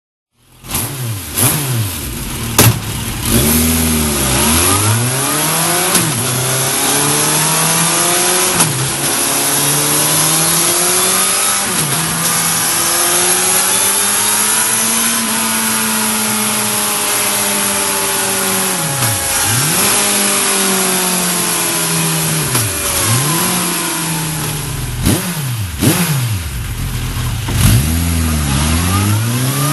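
Suzuki GSX1250FA's inline-four engine revved over and over, its pitch climbing and falling back, with one slower, longer climb in the middle. It runs first through the stock silencer and later through a Mivv Speed Edge aftermarket slip-on silencer.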